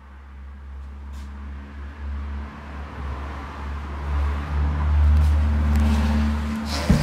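Motor vehicle engine rumble that swells to a peak about five seconds in and then eases off, with a couple of sharp thumps right at the end.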